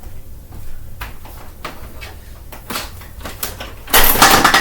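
A Dirt Devil Swivel Glide Vision upright vacuum being handled: a series of plastic clicks and knocks, then a sudden loud rushing clatter about four seconds in that dies down within a second.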